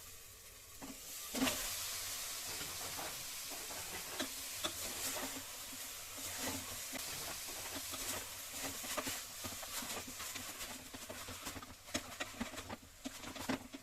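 Country chicken pieces sizzling as they go into hot oil with fried turmeric-and-onion paste in a pressure cooker, with scattered clicks of stirring. The sizzle starts suddenly about a second in and drops away near the end.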